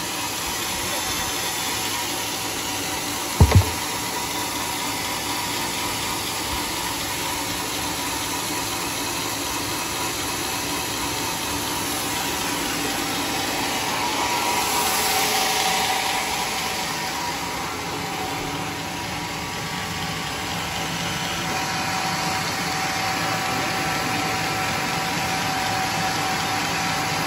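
Homemade band sawmill running steadily, with one sharp knock about three and a half seconds in and a louder hiss for a couple of seconds around the middle.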